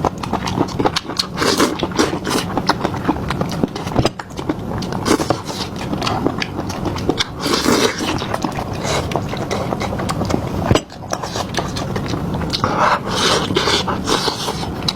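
Close-miked eating sounds: a person biting and chewing food, with dense crunching and smacking clicks, broken by two short gaps about four and eleven seconds in.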